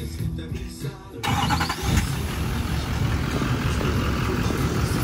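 Hip-hop music cut off about a second in by a lifted pickup truck's engine running steadily and loudly.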